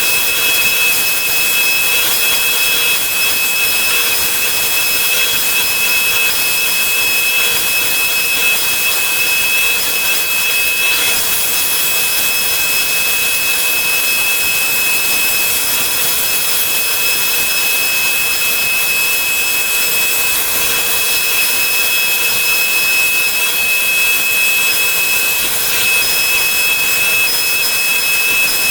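Woodworking power tools running steadily, a constant high whine over a hiss: a CNC router cutting out wooden sign letters while the cut-out circles are being sanded.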